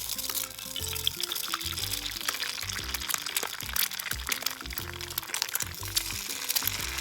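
Background music over a dense crackling sizzle that starts suddenly: food frying in a hot grill pan.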